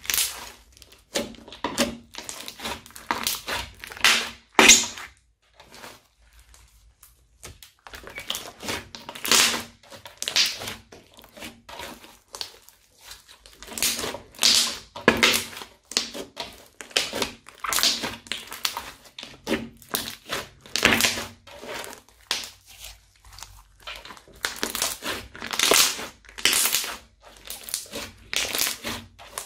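Hands squeezing and kneading a crunchy slime with small beads mixed in, crackling and popping in irregular bursts with short pauses between squeezes.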